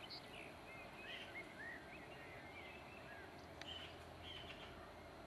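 Faint twittering of small birds, many short high chirps and quick up-and-down whistles scattered through, over steady outdoor background noise; a faint low rumble comes up about two-thirds of the way in.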